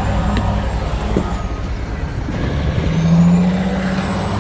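Refuse truck running at close range, a steady low engine hum; the note swells louder for about a second around three seconds in.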